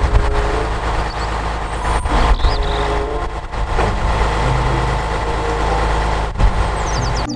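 Heavy tow truck's diesel engine running steadily while its hydraulic crane boom is worked, with a few brief knocks, the sharpest about six seconds in.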